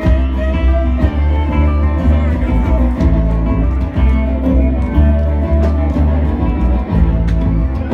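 Live acoustic folk band playing, with plucked strings over a strong, steady bass.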